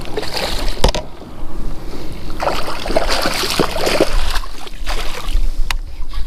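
Wind rumbling on the microphone aboard a kayak, with a sharp knock about a second in and another near the end. Between about two and a half and four and a half seconds in comes a stretch of splashing and rustling noise as a just-caught redfish is handled.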